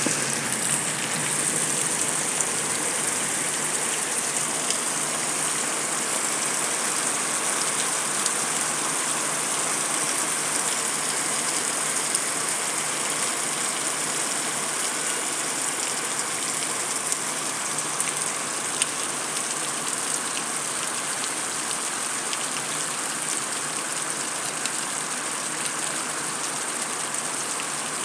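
Heavy rain falling on concrete: a steady hiss with scattered sharp drop ticks.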